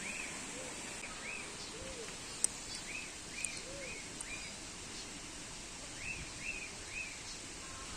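Birds calling: short arched chirps in groups of three or four, with a few lower, slower calls among them, over a steady high hiss.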